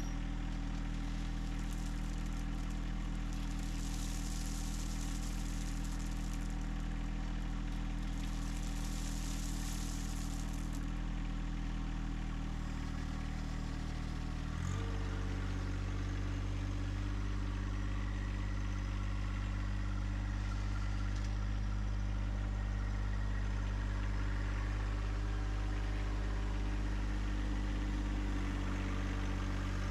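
John Deere 1025R compact tractor's three-cylinder diesel engine running steadily, its note changing abruptly about halfway through.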